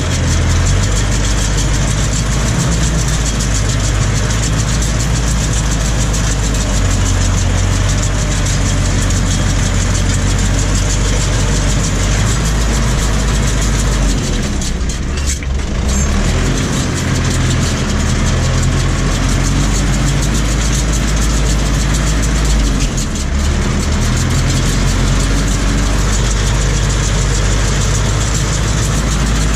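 Tractor diesel engine running steadily under load, heard from inside the cab, as it pulls a SIPMA PS 1312 Power Cut round baler that is working behind it. The engine note dips briefly about halfway through.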